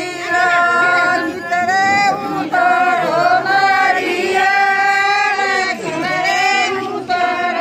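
Several women's voices singing together, holding long notes that slide at their ends and break off about every second.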